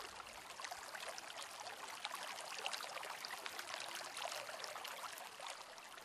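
Faint, steady water sound effect: trickling and dripping water, many small drop-like ticks over a soft hiss.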